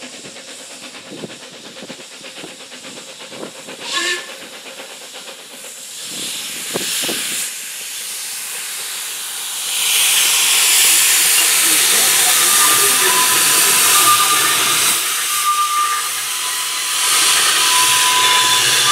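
Narrow-gauge steam locomotive hissing loudly as steam escapes while it pulls past, the hiss starting about ten seconds in. Faint high squeals from the wheels on the curve as the goods wagons roll by near the end.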